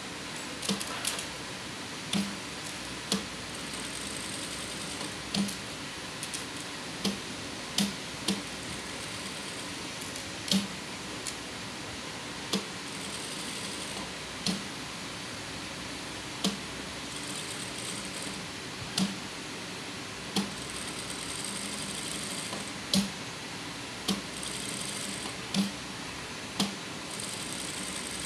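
JUKI industrial lockstitch sewing machine stitching in short runs, stopping with a sharp clunk every one to two seconds as the fabric is turned at the corners of the pattern, over a steady motor hum.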